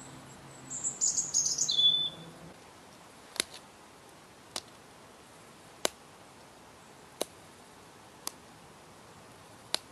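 A bird chirping briefly about a second in, then six sharp clicks about a second apart as small flakes snap off a piece of quartz pressure-knapped with a wooden kebab skewer.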